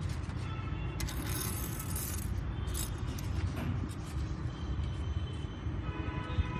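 A sheet of paper rustling and crackling as it is handled and folded, loudest for about a second starting a second in, with a few short crackles after. Under it runs a steady low rumble.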